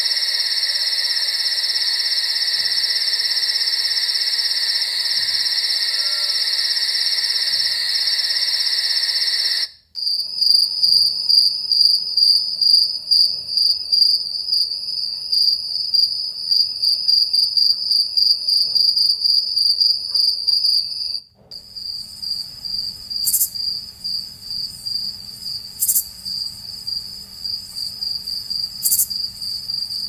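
Three night-insect recordings in a row. First comes a dense, steady insect trill. About ten seconds in, it cuts to crickets chirping in fast pulses. About two-thirds through, it cuts to another cricket chirping recording with a few sharp clicks.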